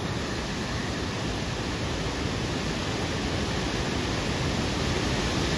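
Rushing water of a river pouring down a small waterfall: a steady, unbroken noise of falling water.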